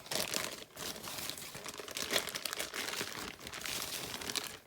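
Packaging crinkling and crackling as a model train tender is unwrapped from its box, a dense run of irregular crackles that stops near the end.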